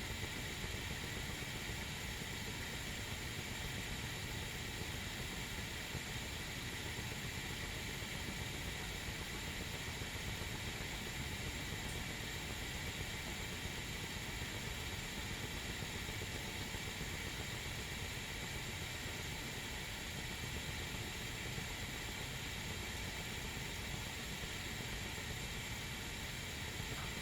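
Whistling tea kettle heating water, not yet whistling: a steady, even hiss with a low rumble underneath as the water warms.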